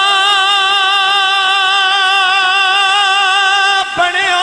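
A man singing a Punjabi Sufi kalam, holding one long high note with a steady wavering vibrato for nearly four seconds. The note breaks off briefly near the end, and the next phrase begins.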